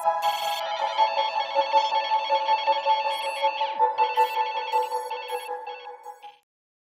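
Intro music: sustained chords under fast, high twinkling notes, fading out and stopping shortly before the end.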